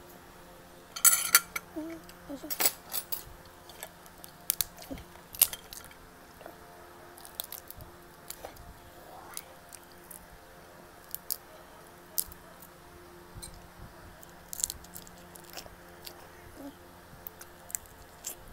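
Close-up eating sounds: a person chewing snow crab meat and noodles, with wet mouth smacks and sharp clicks scattered through, the loudest cluster about a second in.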